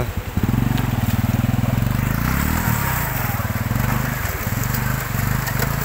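Small motorcycle engine running as the bike is ridden through shallow muddy floodwater, its pitch rising and falling once about two and a half seconds in.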